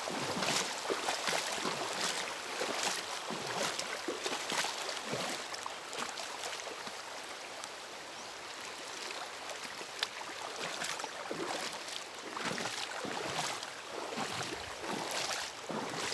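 Floodwater splashing and sloshing in irregular strokes over a steady rush of noise.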